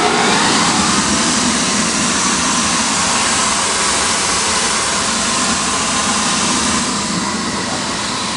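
The vacuum hold-down blower of an Autometrix X5 cutting table running, a loud steady rush of air that eases slightly near the end.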